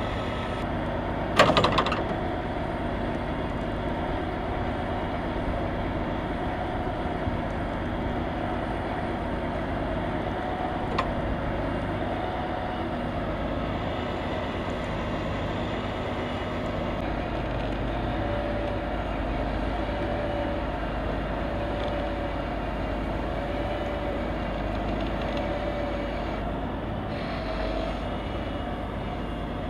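Heavy truck diesel engines running steadily as a tow truck winches a tractor-trailer out of the median, with a wavering whine over the rumble. A loud sharp knock about a second and a half in, and the low rumble grows heavier from a little past halfway.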